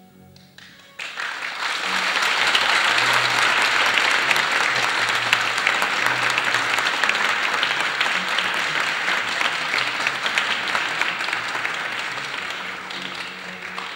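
Audience applauding, starting about a second in and tapering off near the end, with soft music underneath.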